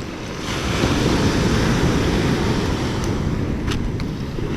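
Steady rushing of wind and waves, swelling about half a second in, with a few faint clicks near the end.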